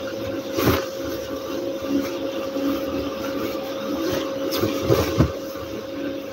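Blankets and bed sheets being lifted, shaken and spread over a bed, with a few soft thumps, the loudest about a second in and a pair around five seconds, over a steady motor hum with one constant tone.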